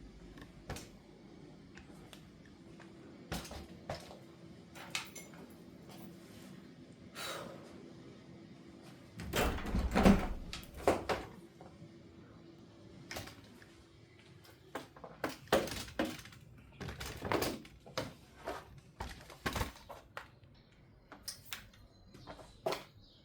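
Irregular knocks and clunks of things being handled, with a louder clatter about ten seconds in. A faint steady hum runs under the first half and stops a little after the clatter.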